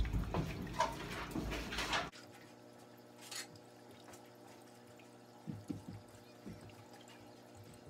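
Water dripping and splashing as it is shaken out of a dirty aquarium filter cartridge just pulled from the filter. The sound cuts off suddenly about two seconds in, leaving a faint steady hum with a short hiss and a few soft knocks.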